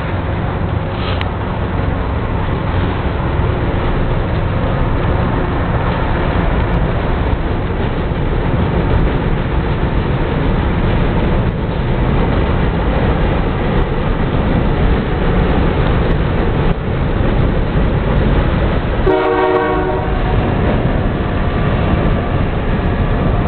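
Passenger train passing, a steady rumble of wheels on the track, with a short horn blast about nineteen seconds in.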